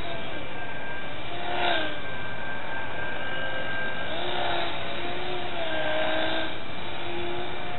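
Geared electric motor and propeller of a micro RC airplane buzzing in flight, its pitch rising and falling in short stretches as the throttle changes, over a steady hiss.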